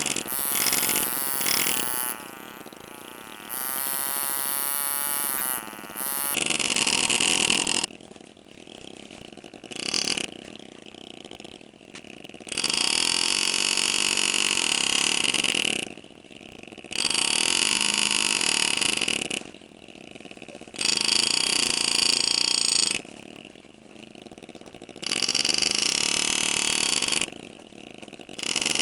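An engraving tool buzzing, its pitch wavering at first, then running in repeated bursts of two to three seconds with short pauses between them.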